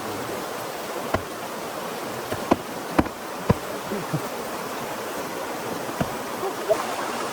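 Steady hiss of rain, with several short sharp knocks scattered through it, the loudest about a third of the way in.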